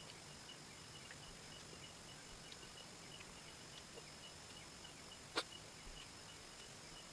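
Faint, steady insect chirping, like crickets, in fast even pulses, with one sharp click about five seconds in.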